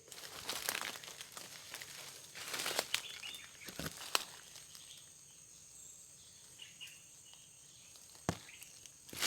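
Dry leaves and undergrowth rustling and crackling underfoot in irregular bursts, with a few sharp snaps, as someone moves through brush on foot; faint bird chirps now and then.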